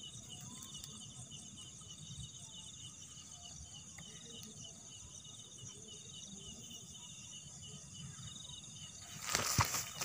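Crickets and other night insects trilling steadily in a pulsing chorus. Near the end comes a sudden loud rustle in the grass.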